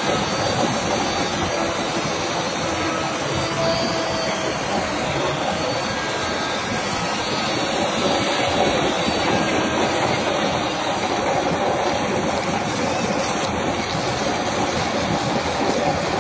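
Electric wood router running steadily, its bit cutting away and cleaning up the background wood around a relief carving.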